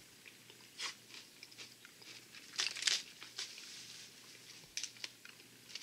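Quiet crunching and chewing of aloo bhujia, a crisp fried potato and chickpea noodle snack, heard as sparse crackles. There is a short burst of crinkling from the plastic snack bag about two and a half seconds in.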